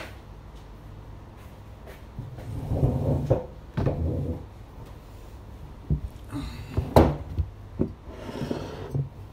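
Chair scraping across a tiled floor as it is pulled out, then several knocks and bumps on the table, one sharp knock louder than the rest about seven seconds in.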